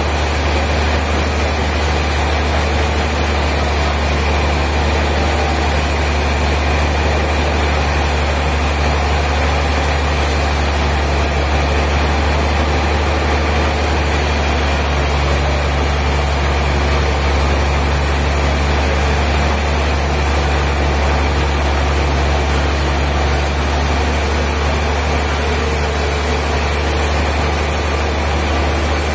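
A heavy engine running steadily at a constant speed, with a strong low hum and no change in pitch or level.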